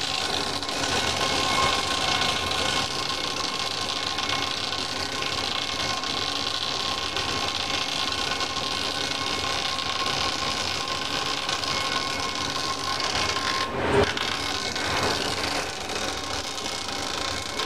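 Tyre strip cutting machine running, its rotary cutter discs slicing a tyre sidewall into strips as it is turned through: a steady noise with a faint steady whine. A single sharp knock about fourteen seconds in.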